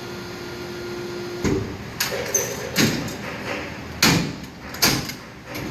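Compactor baler in manual operation. A steady motor hum cuts off about a second and a half in, then about five sharp metal bangs and clanks follow, and the hum starts again at the very end.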